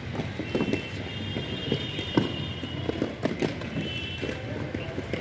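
Inline skate wheels rolling over rough concrete in a low rumble, with irregular sharp knocks as the skates are set down stride after stride.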